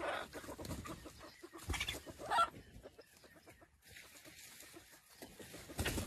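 Chickens clucking in short calls, one at the start and a louder one about two seconds in.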